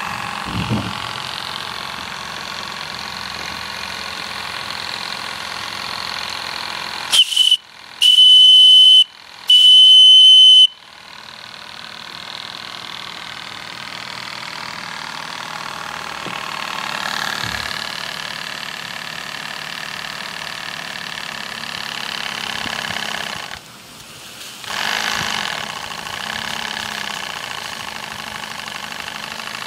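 Graham TVR1A two-cylinder model steam engine running steadily on steam. About seven seconds in, a steam whistle on the boiler sounds three loud, steady high blasts: a short one, then two longer ones.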